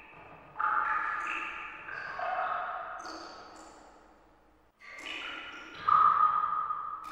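Background music of bell-like ringing notes, changing pitch a few times a second and each fading away, with a brief break about four and a half seconds in.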